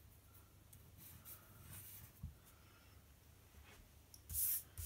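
Faint rustling of fingertips pressing and smoothing a paper sticker onto a planner page, with a brief louder rustle about four seconds in.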